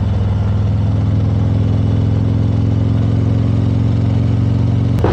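Motorcycle engine running steadily under way, holding an even, unchanging pitch with no revving.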